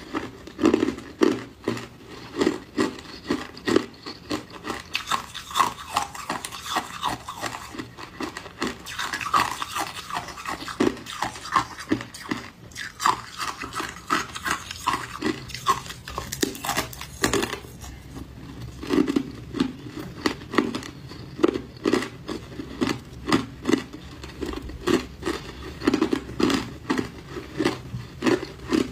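Close-miked biting and chewing of hard white ice: a steady run of sharp crunches, about two a second, as the slab is bitten through and chewed.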